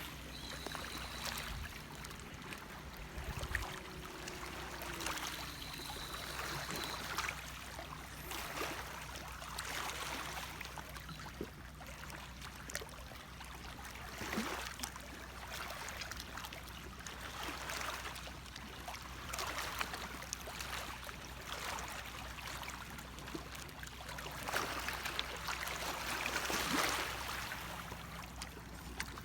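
Small waves lapping at the edge of a lake in soft, irregular swells every few seconds.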